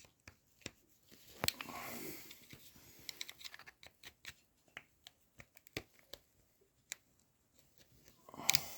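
Scattered small metal clicks and scrapes of a tool prying at a spiral retaining ring on an electric bike hub motor's shaft, with a short scrape a couple of seconds in and a louder rustle near the end.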